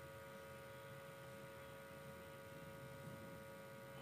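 Near silence: a faint, steady electrical hum with a few thin fixed tones.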